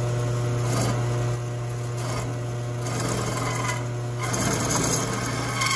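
Drill press running with a mill bit cutting a slot, taking a light cut of a few thousandths per pass: a steady motor hum with repeated bursts of scraping as the cutter bites.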